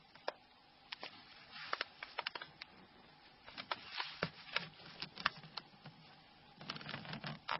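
Small plastic phone parts being handled and pressed into place: irregular light clicks and taps with soft rubbing, as a bezel is fitted over a phone's key mat.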